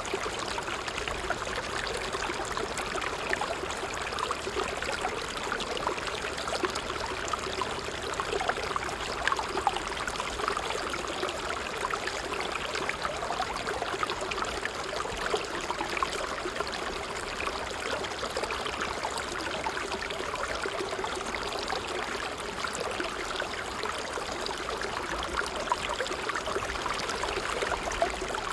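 Water trickling steadily over stones in a small stream, a continuous patter of small splashes and babbling.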